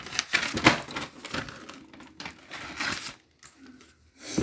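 Crinkling and rustling of handled paper, irregular, for about three seconds, then it stops.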